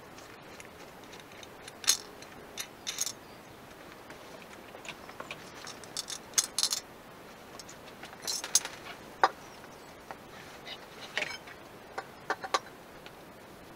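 Scattered light metallic clinks and rattles of wheel nuts and small metal parts being handled on a steel car wheel, coming in irregular clusters.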